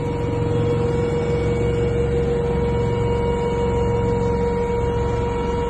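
Westland Lynx Mk7 helicopter in flight, heard from inside the cockpit: the twin Rolls-Royce Gem turboshafts and rotors give a loud, steady drone with a constant mid-pitched whine over a low rumble.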